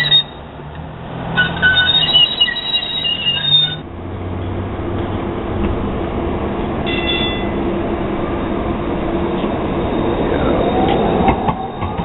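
Portland MAX light-rail trains: a high wheel squeal for a couple of seconds, then a steady rumble as a train approaches, with a motor whine rising in pitch near the end.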